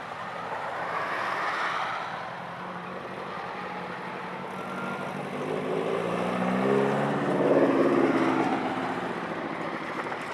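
Motor trikes driving past. One engine comes close and passes about six to eight seconds in, its note loudest then and fading away.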